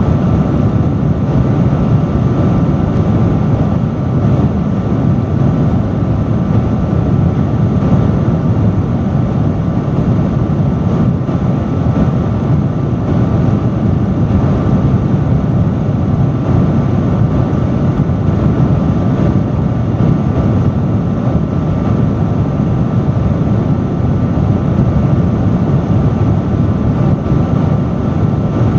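Industrial fan running steadily, a loud constant rush of airflow weighted low, with a faint steady whine riding on top.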